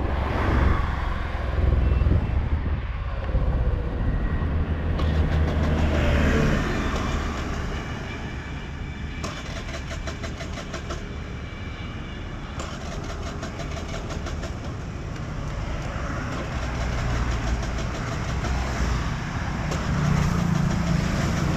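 Wind rushing over the microphone on a moving TVS Scooty Pep+ scooter, with its small engine and tyres running underneath; its petrol is nearly used up. It is louder in the first few seconds and again near the end.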